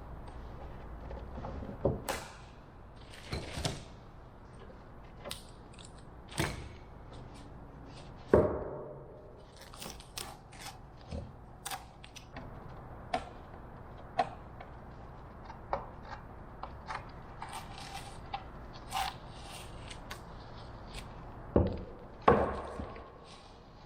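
Scattered knocks, clicks and taps of wooden parts and tools handled on a workbench, with a sharp knock about eight seconds in and a few louder ones near the end.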